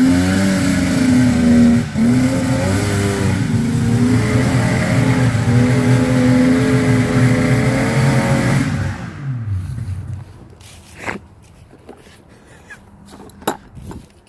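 Snowmobile's two-stroke engine running with its revs rising and falling, smoking heavily, then winding down in pitch and stopping about nine seconds in. After it stops, only a few faint knocks and rustles.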